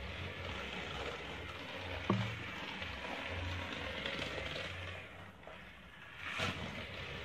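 Small battery-powered toy car whirring and rattling around a plastic race track, getting louder as it passes close about six seconds in. A sharp click about two seconds in.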